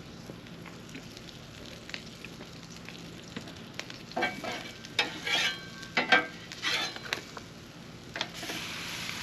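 Red and green peppers and onions sizzling on a Blackstone flat-top griddle, with a metal spatula scraping and clattering against the griddle in several strokes from about four seconds in. The sizzle grows louder near the end.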